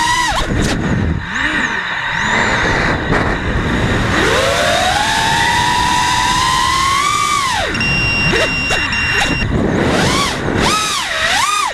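Racing quadcopter's brushless motors and propellers whining, the pitch rising with throttle, falling sharply, then swooping up and down in quick changes near the end, over a steady rushing noise.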